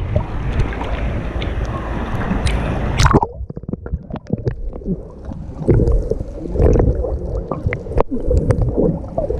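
Swimmers splashing in sea water, then about three seconds in the sound turns muffled as the microphone goes under water, with gurgling, bubbles and clicks.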